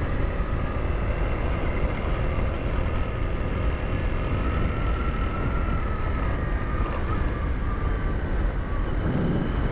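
Honda CRF250L's single-cylinder four-stroke engine running steadily while riding on a gravel road, with wind noise on the microphone.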